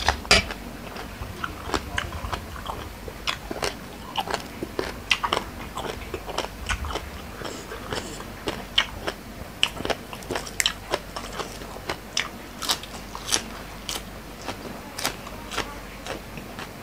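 Close-up chewing and crunching of a crunchy lotus-stem salad with raw lettuce leaves: irregular crisp crunches and mouth clicks, a few each second.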